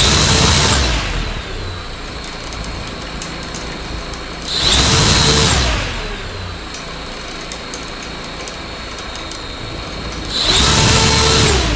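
Hacker A60-16L brushless electric motor spinning a six-blade homemade propeller that is deliberately unbalanced by a bolt and nut on one blade, shaking the motor and its mount. It runs steadily and surges to a louder, higher-pitched run three times, about five seconds apart, each surge lasting about a second and a half.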